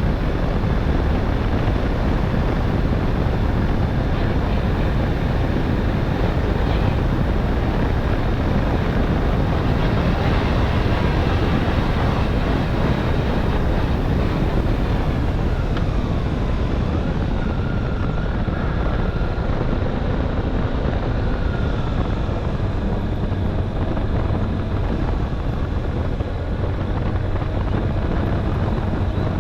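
Motorcycle under way at speed: a steady rush of wind on the microphone over engine and road noise. A faint thin whine joins for a few seconds about halfway through.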